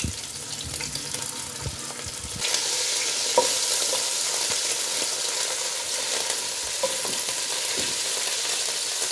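Crushed garlic-ginger paste sizzling and spitting in hot cooking oil in a karahi. The sizzle jumps much louder about two and a half seconds in as more paste is dropped in from a slotted spoon, with a single light tap soon after.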